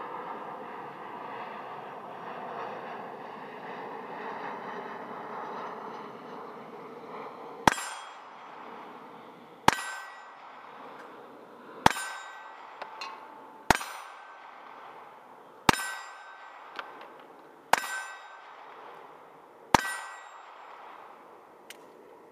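Ruger LCP .380 ACP pocket pistol firing seven shots about two seconds apart, the first about a third of the way in. The steel target rings after the hits.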